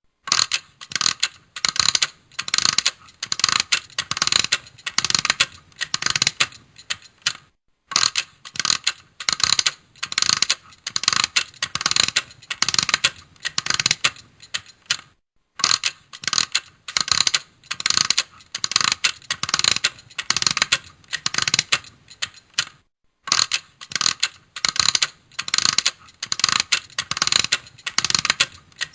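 A mechanical clock being wound by hand: the winding ratchet clicks in short rapid bursts, stroke after stroke, about two a second, stopping briefly three times.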